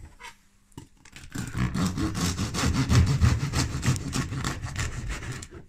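Bread knife sawing through a crusty sourdough loaf in quick back-and-forth strokes. The cutting starts about a second in and stops just before the end.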